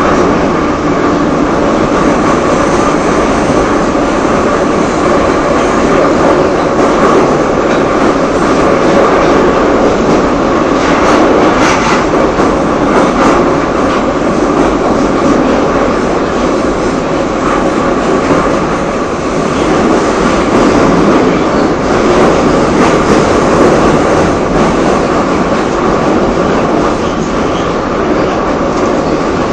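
Broken electric fan running: a loud, steady mechanical noise with a droning hum.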